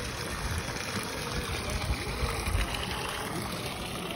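Water jet from a hose pipe splashing steadily into a pond.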